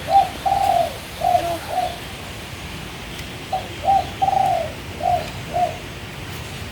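A dove cooing: two phrases of about five short, low coos, a second or so apart.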